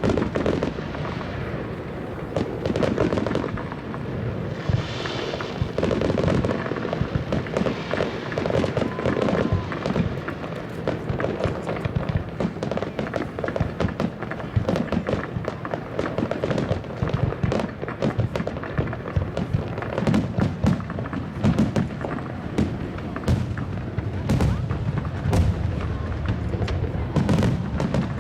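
Fireworks bursting overhead in quick succession: a dense run of booms and crackling reports, thickest in the second half.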